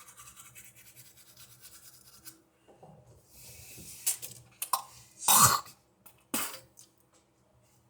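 A person coughing several times in short bursts, the loudest about five seconds in, after a few seconds of soft rubbing.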